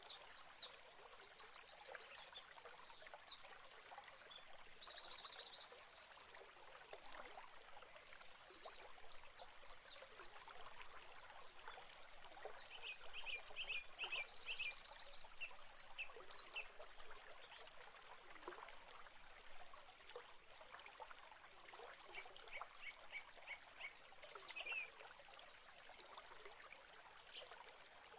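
Faint crackling and rustling inside a great tit nest box as the sitting bird shifts on the nest. Several short bursts of high chirping notes, each a quick run of repeated notes, come through, the lower-pitched ones at about the middle and again near the end.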